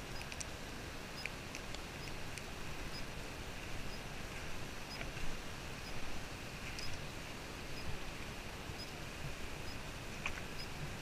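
Steady rushing of a fast-flowing alpine river over a gravel bed, with scattered small clicks throughout.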